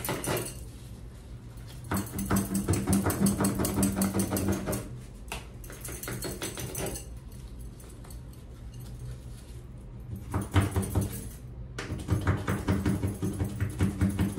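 Hand scrub brush scrubbing mildew from the corner of a bathtub and its tile grout, in quick back-and-forth strokes. The scrubbing comes in two bursts with a quieter pause between.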